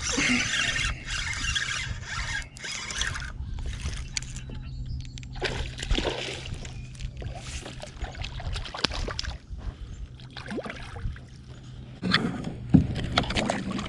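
Water splashing and sloshing beside a fishing boat as a hooked bass is brought in and handled, with scattered knocks and clicks. A low steady hum runs underneath. The splashing is loudest in the first two seconds.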